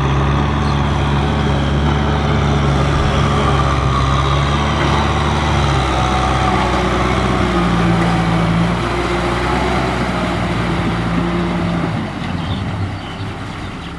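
Tractor engine running steadily under load, its pitch shifting a couple of times; it gets quieter near the end.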